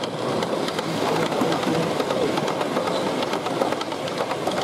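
0 gauge model train running past on the layout: a steady rumble of wheels and motor, with wheels ticking over the rail joints.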